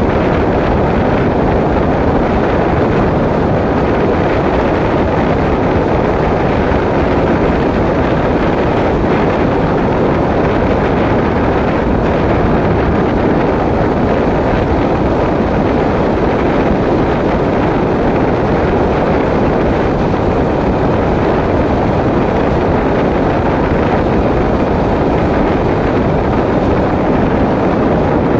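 Steady wind rush on the microphone of a moving motorbike, blended with road and engine noise.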